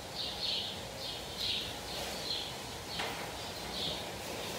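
Small birds chirping, short high chirps repeating a few times a second, with one sharp click about three seconds in.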